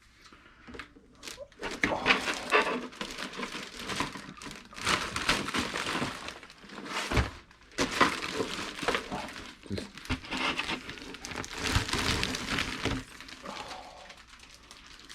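Cardboard and plastic packaging being handled: irregular crinkling and rustling, with a few thunks as things are set down.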